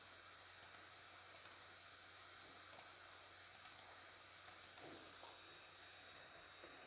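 Faint computer mouse clicks, several in quick pairs like double-clicks, over a low steady hiss and hum of the recording.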